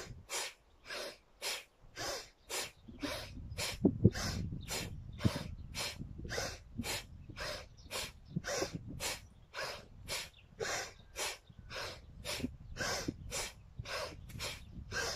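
Forceful, rapid rhythmic breathing of a Kundalini yoga breath exercise: sharp pumped breaths at about two a second, evenly paced.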